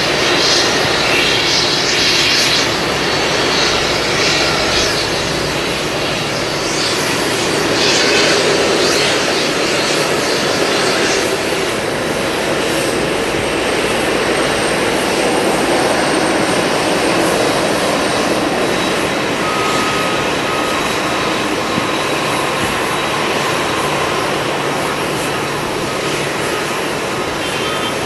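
Boeing 747-400D's four jet engines running, a loud steady jet roar with a thin high whine through it.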